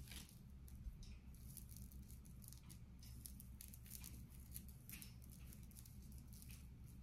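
Faint handling noise of costume jewelry being sorted: soft crinkling of small plastic bags and scattered light clicks of pieces knocking together.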